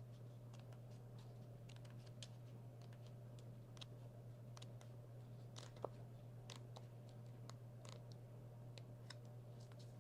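Faint paper handling as the pages of an album photo book are flipped through: scattered soft ticks and rustles over a steady low hum.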